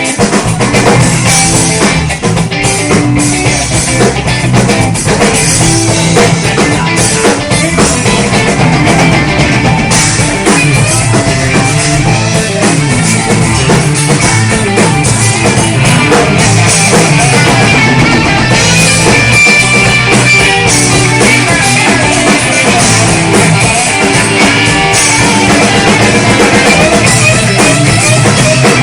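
A rock band playing live at a sound check: drum kit and guitar, loud and steady.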